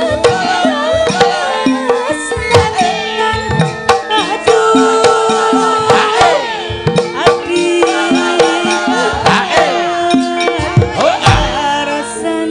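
Javanese gamelan music: sustained bronze metallophone notes stepping from pitch to pitch, driven by frequent kendang drum strokes, with wavering melodic lines above.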